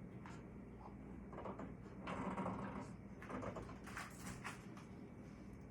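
Parts of a table saw being handled and fitted by hand: a scrape about two seconds in, then a run of light clicks and knocks.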